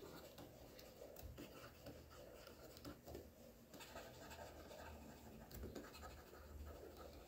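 Faint scratching and light tapping of a stylus writing by hand on a tablet screen.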